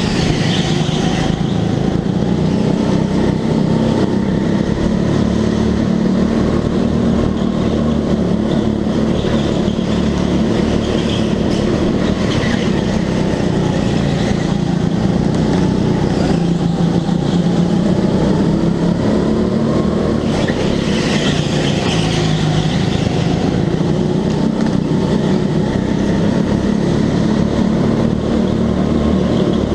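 Go-kart engine running under racing load, its revs rising and falling steadily through the laps.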